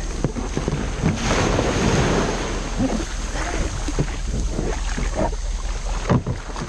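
Small waves washing up the sand and sloshing around a plastic sit-on-top kayak's hull as it comes in through the shallows to the beach, with scattered splashes and knocks and a swell of surf about a second in. Wind buffets the microphone throughout.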